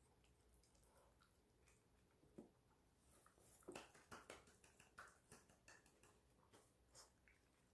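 Faint scattered clicks and ticks of a poodle licking its empty plate clean and moving about, coming most thickly about four seconds in.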